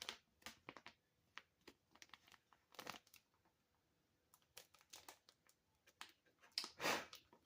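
Faint, scattered crinkles and small clicks of plastic packaging and toy parts being handled, with louder crinkles about three seconds in and near the end.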